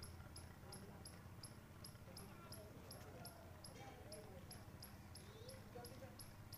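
Faint, evenly spaced cricket chirps, about three a second, over a low steady hum.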